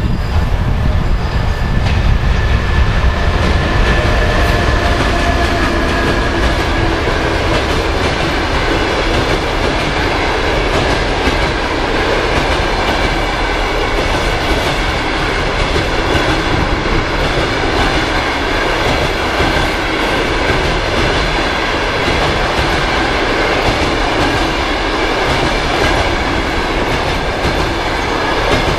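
ЭП1М electric locomotive passing close with a heavy low rumble, followed by a long train of passenger coaches rolling by. The wheels knock over the rail joints, and a thin steady squeal from the wheels sets in a few seconds in.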